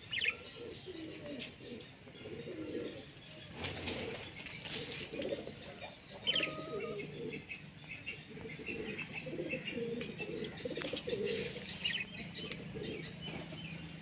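Caged budgerigars chirping in short sharp calls, over a steady run of lower repeated bird calls, with brief flutters of wings about four seconds in and again near eleven seconds.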